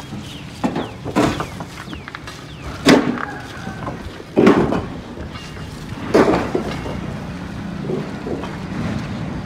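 A few loud knocks and thumps, roughly one to two seconds apart, over a low steady hum that strengthens in the second half.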